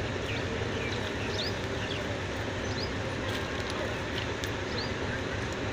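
Steady diesel engine hum of a truck-mounted mobile crane running as it holds a steel beam in the air, with a few short high chirps over it.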